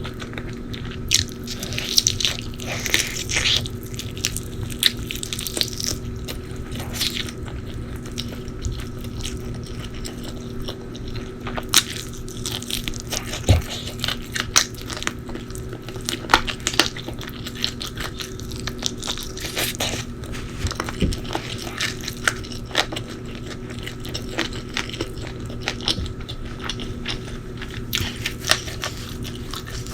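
Close-miked eating: irregular crunchy bites and chewing, with sharp crackly crunches scattered through, over a faint steady hum.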